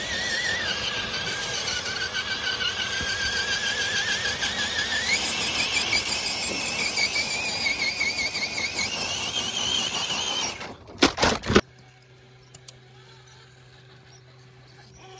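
1/10-scale RC crawler's electric motor and geartrain whining, the pitch wavering and stepping up as the throttle changes. It stops abruptly after about ten seconds and is followed by a few loud sharp clicks.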